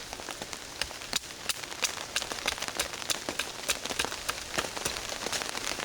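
Rain falling on a tarp overhead, a steady patter with many irregular sharp drop taps.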